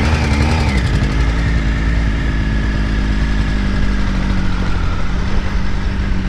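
Triumph Tiger 955i's three-cylinder engine running as the bike moves off slowly, its note rising and falling briefly in the first second and then holding steady.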